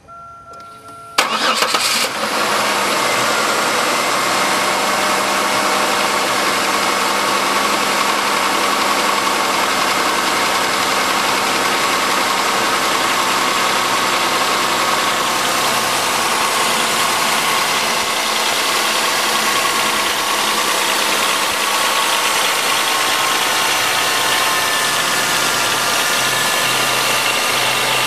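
Chevy 3100 3.1-litre V6 cold-starting: after a brief steady tone it catches about a second in and settles into steady running at a fast cold idle, with a rattling knock that is typical of so-called cold piston slap.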